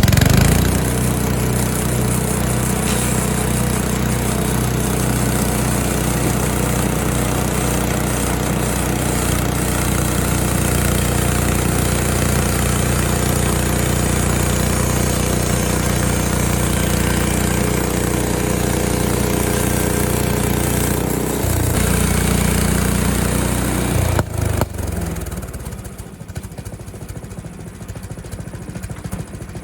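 Small gasoline engine of a portable bandsaw sawmill starting up and running steadily. About 21 seconds in its note changes, there are a couple of knocks a few seconds later, and then it drops to a quieter, rougher running sound.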